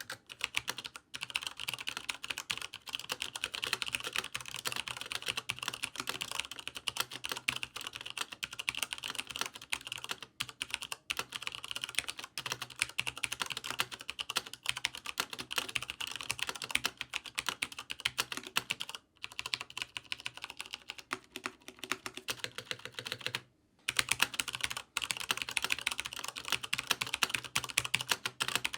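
Fast, continuous typing on a mechanical gaming keyboard with tactile, non-clicky switches. It breaks off briefly about two-thirds of the way in and resumes louder.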